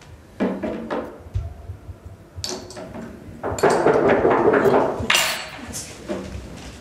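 A drinking glass and a small glass bottle set down and handled on a marble tabletop: several clinks and knocks, with a longer stretch of clattering about halfway through.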